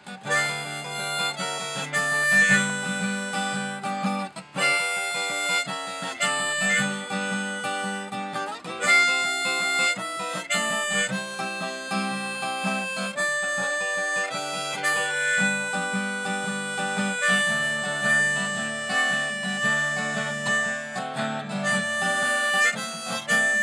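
Harmonica played in a neck rack over a strummed acoustic guitar: an instrumental harmonica break of long held notes.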